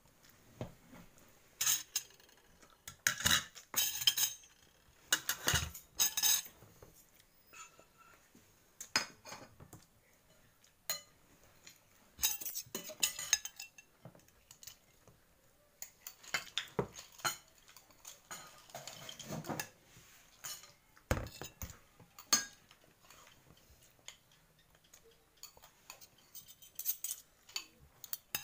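Spoon and fork clinking and scraping against ceramic plates and a serving bowl during a meal, in irregular clusters of knocks with short quiet gaps between them.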